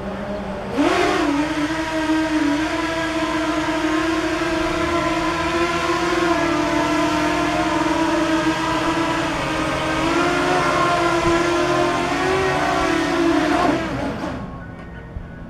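Homemade RC flying saucer's motor and fan spinning up sharply about a second in to a steady, high whine with a rush of air as the craft lifts and hovers. The pitch wavers slightly, then the whine winds down near the end as it sets back down.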